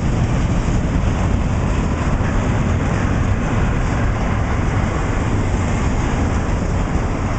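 Double-stack intermodal freight train's container cars rolling past: a steady rumble of steel wheels on the rails.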